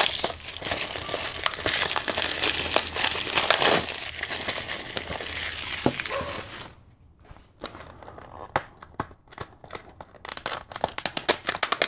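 Clear plastic shrink wrap crinkling as it is crumpled in the hands. After about six and a half seconds this gives way to a run of small sharp clicks and ticks as fingers pick at the edge of a blue plastic Blu-ray case.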